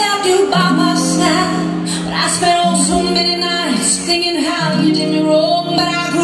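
Pop dance track with a woman singing over sustained chords that change about every two seconds, played over a hall's sound system.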